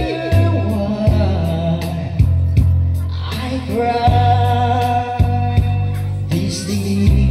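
Karaoke singing through a microphone and speakers: a voice holding long notes over a backing track with a heavy bass line and a steady beat.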